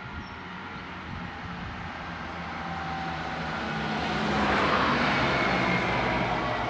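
An LF 10/6 fire engine drives past. Its engine and tyre noise grow louder, peak about two-thirds of the way through, and then begin to fade.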